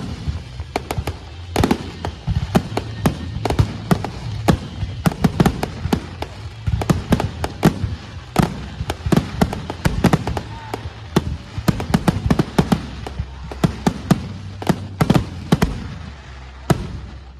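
Fireworks finale: a dense, rapid barrage of shell bursts and crackling bangs, several a second, thinning out near the end.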